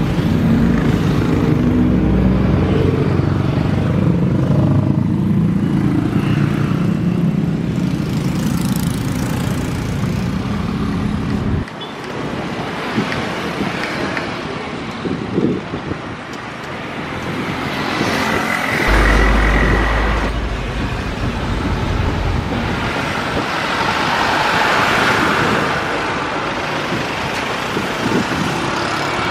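Jet airliner engine noise in several edited segments: a heavy low rumble for the first dozen seconds, then, after an abrupt cut, quieter engine noise with a steady whine. Near the end a broad jet roar swells and fades as a Boeing 737-type airliner climbs out after takeoff.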